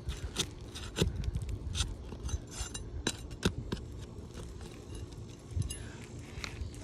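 Metal flat bar and pry bar scraping and clicking against asphalt shingles and roofing nails as the nails are pried out, with scattered sharp metallic clicks.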